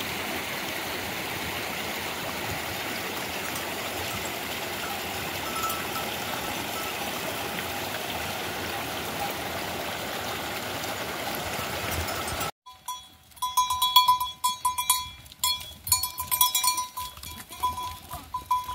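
A steady, even hiss for about twelve seconds. Then, after a sudden cut, bells on a herd of goats clank and jangle unevenly, ringing again and again at the same pitch among sharp clicks.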